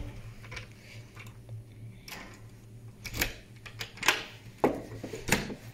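A hotel room door's lock and chrome lever handle being worked to open it: a handful of short, sharp metallic clicks spread over a few seconds.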